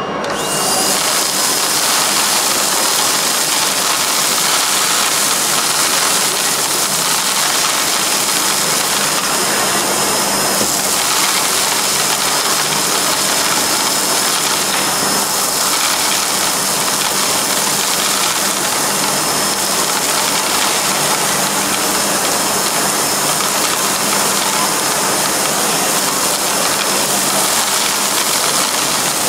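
A vacuum cleaner switches on about half a second in and runs steadily, with a loud rush of air and a steady high whine. It is sucking a mix of sand, green beans and rice through its hose into a homemade cyclone separator made of plastic bottles.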